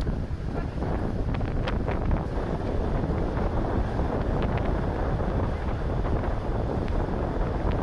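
Wind buffeting the microphone: a steady, dense rumble, with a few brief faint ticks about two seconds in and again about four and a half seconds in.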